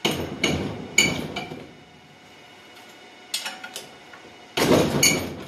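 A 17 mm wrench on the base-plate bolts of a vintage Ski-Doo Rotax engine, clinking metal on metal as the bolts are loosened. There are a few sharp ringing clinks in the first second and a half, two light ticks a little after three seconds, and a louder clatter near the end.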